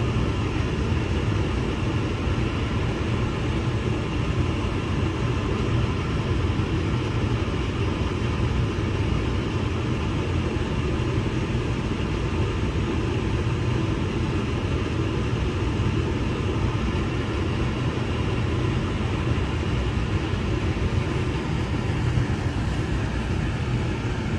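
Biosafety cabinet blower and its airflow running, a steady storm-like rush with a strong low rumble.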